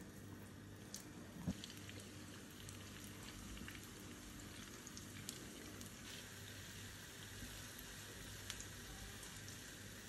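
Puff puff dough balls deep-frying in hot oil in a saucepan: a soft steady sizzle with scattered small pops and crackles. A single knock sounds about one and a half seconds in.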